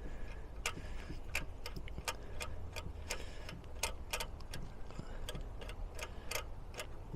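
Irregular metallic clicking, two or three clicks a second, as a thread tap is wound back out of a Weber carburettor's freshly tapped fuel inlet bore.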